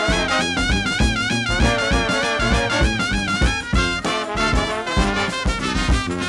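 Background music: a brass-led jazz tune with wavering horn notes over a steady beat.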